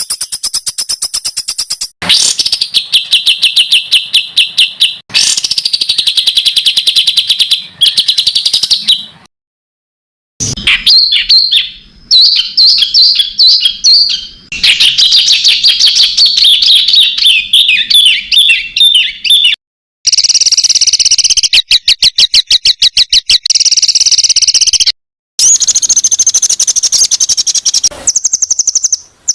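Songbird-tutoring (masteran) track of recorded songbird calls spliced together: dense, rapid-fire trills and chatters of repeated high notes. The clips change with abrupt cuts, and there are brief silences between some of them.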